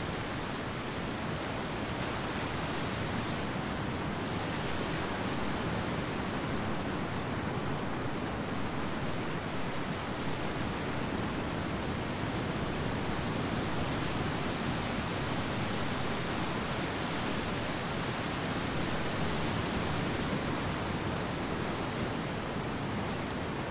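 Ocean surf washing onto a beach, a steady rushing that swells gently a couple of times and eases again.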